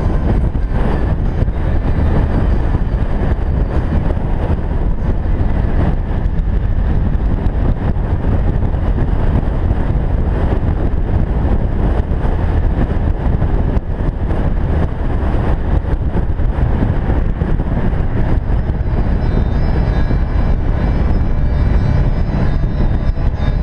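Can-Am Spyder three-wheeled motorcycle cruising at highway speed: a loud, steady rush of engine, road and wind noise at the camera microphone, with no change in pace.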